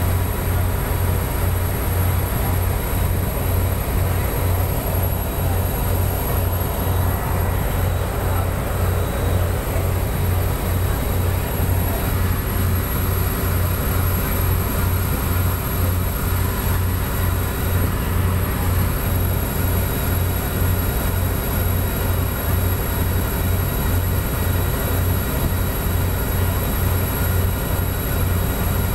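Passenger boat under way: its engine runs steadily with a low, even pulsing throb, over the constant rush of water and spray along the hull.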